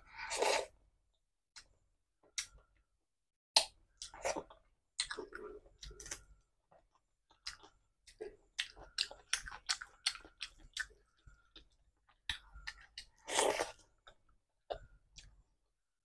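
Close-miked eating sounds of someone chewing a mouthful of rice and fish curry eaten by hand: scattered wet chewing clicks and lip smacks. A short, louder breathy sound comes about thirteen seconds in.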